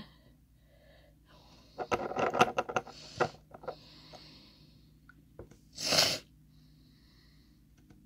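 A person's breath sounds with soft clicks and rustles of handling, then one sharp, loud nasal breath about six seconds in.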